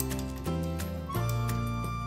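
Instrumental background music: a melody of held notes, changing about every half second.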